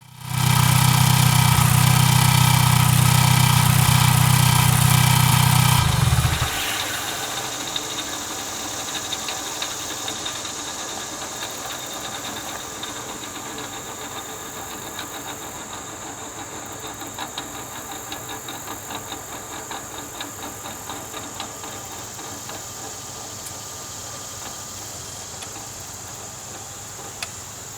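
Mazdaspeed 3 engine running, then switched off about six seconds in. After shutdown, the HTA3586 turbocharger keeps up a faint high whine with a run of light, irregular ticks and clicks that slowly die away.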